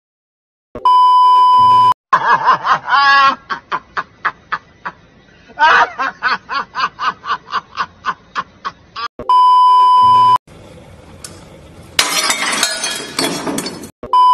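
A steady 1 kHz test-tone beep, about a second long, sounds three times. Between the first two beeps comes a long run of laughter in quick, evenly spaced pulses, and before the last one a hiss of TV static that grows louder about two seconds before the beep.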